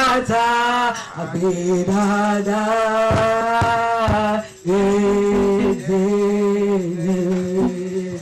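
A voice singing a slow worship song in a non-English language, holding long notes in drawn-out phrases with brief breaths between them.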